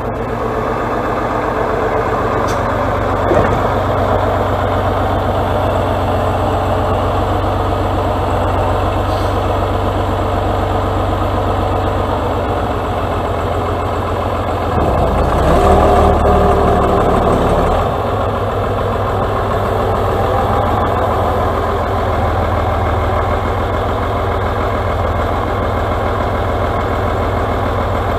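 Atlas 1602 wheeled excavator's diesel engine running steadily as the machine works, getting louder for about three seconds halfway through, then settling back.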